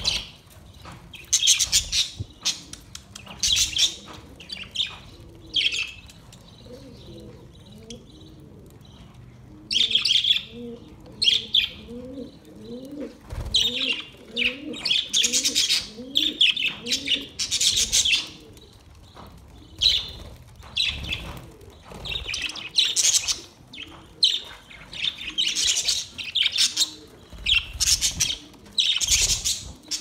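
A flock of budgerigars chirping and chattering while feeding at a seed dish, in quick bursts of sharp high chirps. For several seconds in the middle, a softer, lower repeated call runs beneath the chirps.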